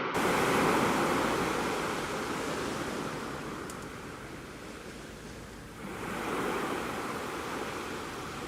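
Sea waves washing onto the shore, the surge swelling near the start, falling away, then rising again about six seconds in.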